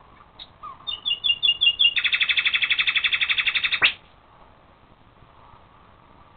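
Young European badgers chittering at close range: a string of high chirps at about five a second, then a fast, continuous chatter lasting about two seconds that stops abruptly.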